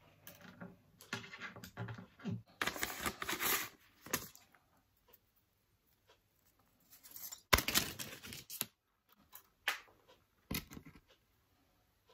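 Scraping and crinkling as a new bronze-alloy acoustic guitar string is handled and uncoiled. The noise comes in irregular bursts, with a sharp click about halfway through.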